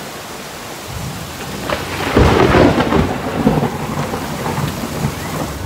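Heavy rain falling steadily, with a rolling rumble of thunder that builds about a second in, is loudest around two to three seconds in, then fades.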